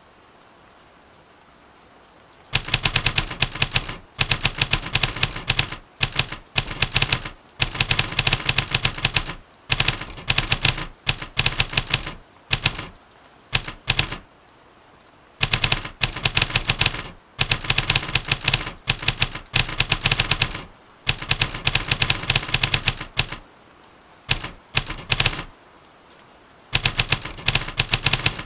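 Typewriter keystroke sound effects clacking in quick runs as text is typed, with short pauses between runs, starting about two and a half seconds in. A faint steady hiss of rain ambience lies underneath.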